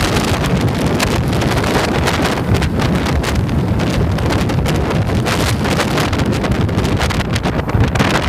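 Wind buffeting the microphone on a moving motorcycle, a loud, constant rush with rapid flutter, with the Yamaha's engine running underneath.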